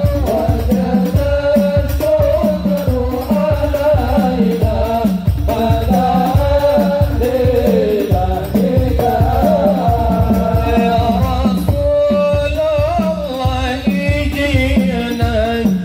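Sholawat devotional singing, a wavering sung melody over a quick, steady beat of hand drums.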